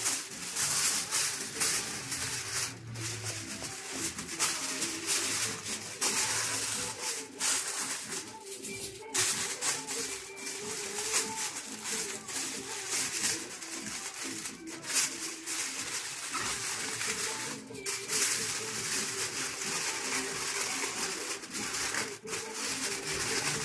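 Aluminium foil crinkling and rustling in irregular crackles as it is stretched over a baking tray and crimped down around its edges by hand.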